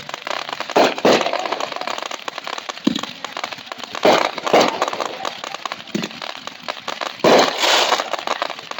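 Fireworks going off: a string of sharp bangs at uneven intervals over continuous crackling, with a dense cluster of bursts near the end.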